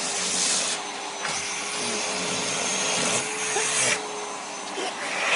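Vacuum cleaner running with a steady hum under a loud rushing hiss. The hiss swells briefly at the start and again a little past halfway.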